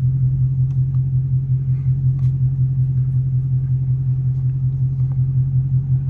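A Ford Mustang GT's 5.0-litre V8 idling, heard from inside the cabin as a steady low rumble.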